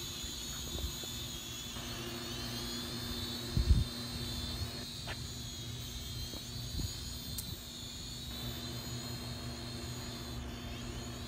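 Small drone's propellers whining steadily in flight, the high pitch wavering slightly, over a low wind rumble; a short thump about four seconds in.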